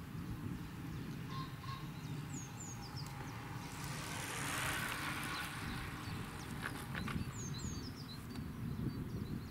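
Outdoor ambience: wind rumbling on the microphone, with small birds chirping now and then. A soft rushing swell rises and fades about halfway through.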